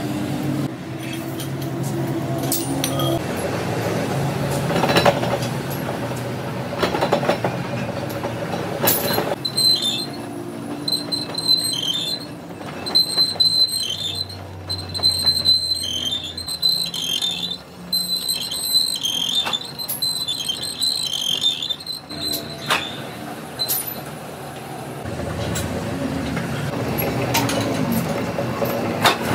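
Metal lathe running while a cutting tool turns the face of a steel truck wheel rim plate, with a steady machine hum. From about nine seconds in until about twenty-three seconds, the cut gives a high squeal that comes and goes in short repeated pulses.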